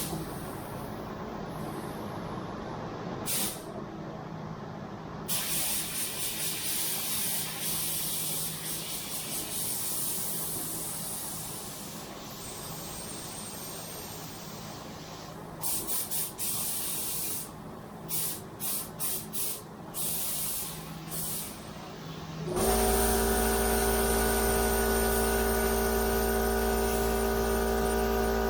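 Paint being sprayed onto a car hood: hissing passes, one long stretch followed by a run of short bursts. Near the end a machine starts and runs with a steady, louder hum.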